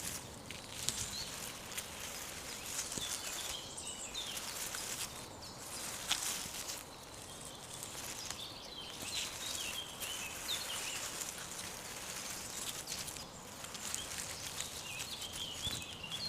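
Forest ambience: steady rustling and light crackling, with short bird chirps three times.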